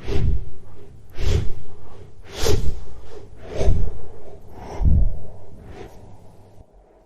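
Dragon creature sound effect: a series of six heavy, breathy snorts or gusts, a little over one a second, growing fainter and ending near the close.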